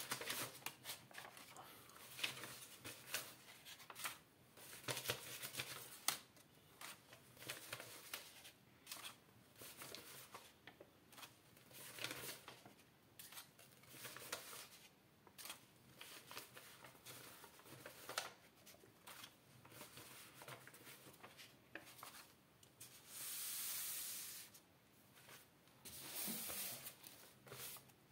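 Crisp paper banknotes being counted by hand, each note flicked and laid down with a short rustle and snap, in a faint, irregular run. Near the end there are two longer rustles as a stack of notes is handled.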